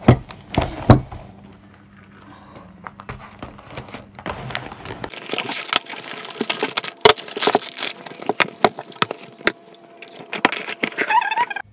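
Close-up handling noises: a rapid, irregular run of clicks, taps and crinkly rustling, as of small objects being handled near the microphone. A low background hum stops about five seconds in.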